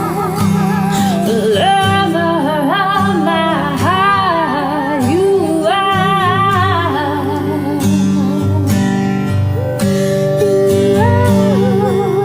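Worship song: a singer holding long notes with vibrato over acoustic guitar.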